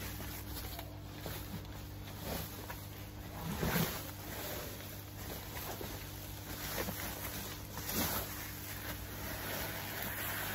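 Foil bubble-insulation cover, taped with gaffer tape, rustling as it is handled and pulled off an inflatable hot tub, with louder rustles about four and eight seconds in.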